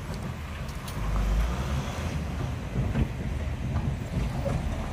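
Dump truck's diesel engine running low as the truck pulls away over dirt ground.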